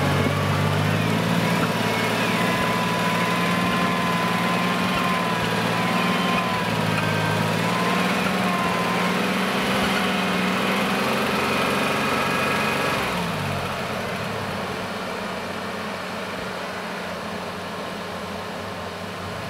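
Off-road SUV engines running hard under load while a Toyota 4Runner stuck in deep snow is pulled on a tow strap by a Mitsubishi Pajero Sport, with a wavering whine over the engine note. About 13 seconds in, the revs fall away and the engines settle to a quieter, steady running.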